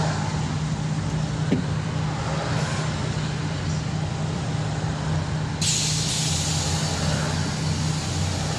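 Scania OmniLink CK94UB city bus under way, heard from inside the cabin: its 9-litre diesel engine runs with a steady low hum over tyre noise on a wet road. A steady hiss comes in suddenly about five and a half seconds in.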